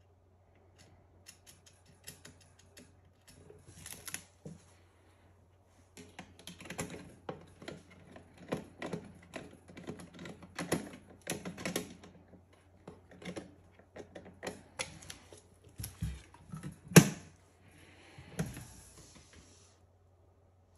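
Stainless steel oven door panel and its hinge fittings being handled and fitted by hand: a run of small metallic clicks and taps, one sharp knock about 17 seconds in, then a short rustle.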